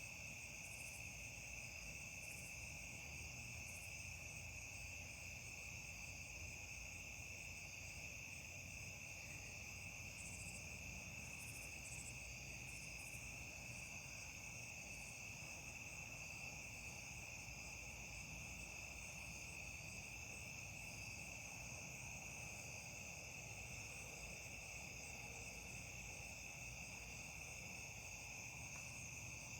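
A chorus of crickets calling steadily without a break, a faint, even high-pitched trilling.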